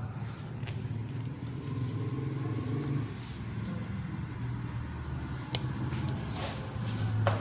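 A motor vehicle's engine running with a steady low hum that swells and eases a little, with two sharp clicks about five and a half and seven seconds in.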